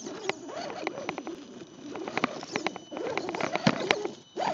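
Axial SCX10 Dingo RC truck's electric motor and gear drivetrain whining, the pitch rising and falling with the throttle, with many sharp clicks and crunches as the tyres climb over dirt, gravel and weeds.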